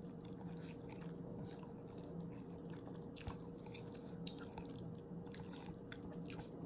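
Faint chewing of spicy cheese ramen noodles, with soft wet mouth smacks and clicks scattered through, over a low steady hum.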